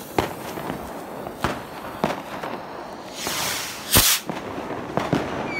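Small star-shell fireworks rocket (Leuchtkugelrakete): its lit fuse sputters and hisses, with scattered sharp pops. About four seconds in, the hiss builds and the propellant charge ignites with a loud rushing burst as the rocket lifts off.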